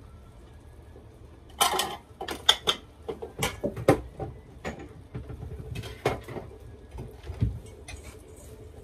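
Kitchen clatter: an irregular run of knocks and clinks from dishes and utensils being handled. It starts about one and a half seconds in and dies away near the end, over a faint steady hum.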